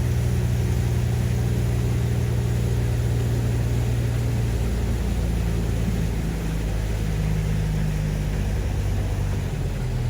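Tour boat's engine running steadily under way. Its note changes and it gets slightly quieter about halfway through.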